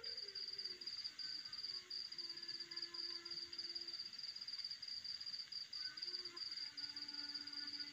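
Crickets chirping: a steady, rapidly pulsing high trill as night ambience on a film soundtrack, heard through a TV speaker, with faint low held notes underneath.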